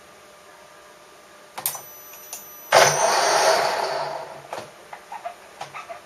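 A sharp metallic clink that rings briefly. About a second later comes a loud rushing noise that fades away over a second and a half. Scattered light taps and clicks follow, as metal tools and parts are handled at a machining bench.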